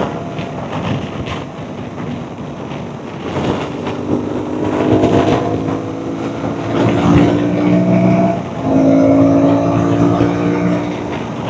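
Aprilia Tuareg 660's parallel-twin engine heard through an Akrapovic full exhaust system while riding. The engine note swells from about three seconds in, dips briefly twice, then picks up again, over wind rush.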